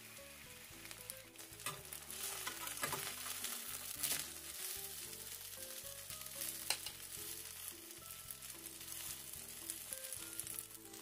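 Seafood-and-chive pancake sizzling in hot oil in a nonstick frying pan, with a few sharp clacks and scrapes of a metal spatula against the pan as the pancake is turned and pressed, over soft background music.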